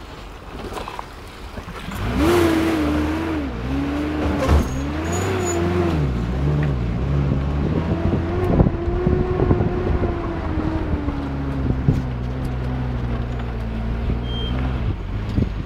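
Off-road 4x4's engine running at low speed over rough ground. From about two seconds in the revs rise and fall repeatedly, then hold steadier, with scattered knocks and rattles from the vehicle.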